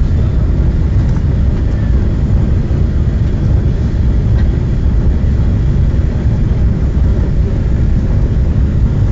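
Steady low rumble heard inside a TGV Atlantique high-speed train carriage running at speed.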